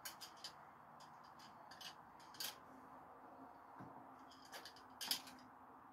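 Light metallic clicks and clinks of steel throwing screwdrivers knocking together as they are handled, a dozen or so faint, uneven ticks with the sharpest about two and a half seconds in and near five seconds.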